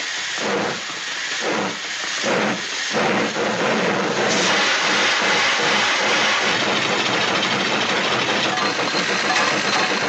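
Studio sound effect of a cartoon steam locomotive. It starts with slow chuffs, about two a second, for the first three seconds, then gives way to a steady loud hiss of steam.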